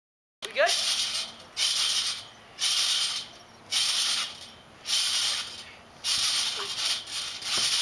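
Trampoline springs and mat rattling with each bounce, in regular bursts about once a second, after a brief silence at the start.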